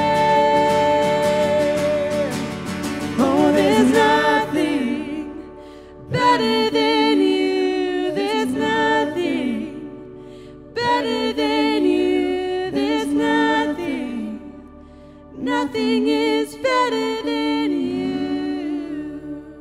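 Worship song performed live: voices singing together in phrases over strummed acoustic guitars, with short pauses between the sung lines.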